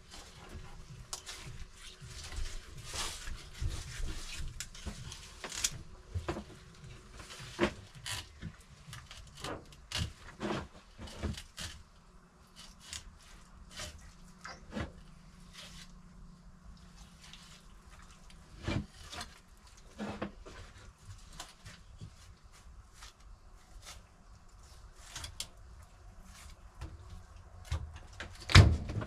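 Scattered clicks, knocks and rubbing of things being handled, with a louder thump near the end.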